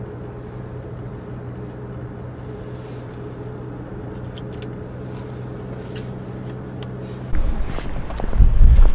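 Steady engine and road hum inside a moving vehicle's cabin. About seven seconds in it gives way abruptly to a much louder low rumble with scattered knocks.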